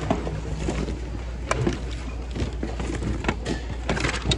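Hands rummaging through a large plastic bin of secondhand goods: items shifted and knocked together in scattered clatters and rustles, with a cluster of knocks near the end. A steady low hum runs underneath.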